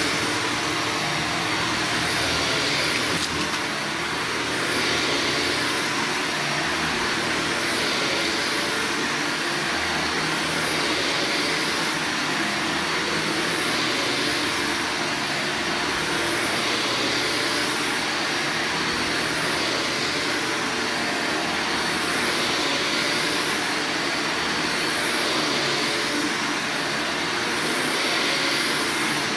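Upright vacuum cleaner running steadily over carpet, its hiss swelling slightly every two to three seconds with each push and pull stroke.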